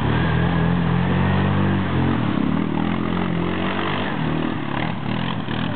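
Yamaha Grizzly ATV engine running under load while the quad ploughs through deep mud and water, its note steady at first, then dropping and wavering about two seconds in. Mud and water splash and churn throughout, with a few sharper splashes near the end.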